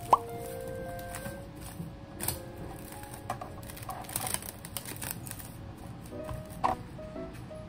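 Plastic cling wrap crinkling and rustling as it is pulled and pressed tight around a sandwich, with soft background music. A short sharp pop comes just at the start and another about seven seconds in.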